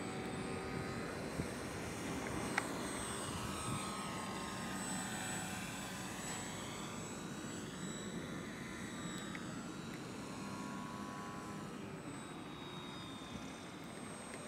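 Radio-controlled Multiplex FunCub model plane flying past: the whine of its electric motor and propeller rises and falls in pitch as it passes back and forth, over a steady hiss.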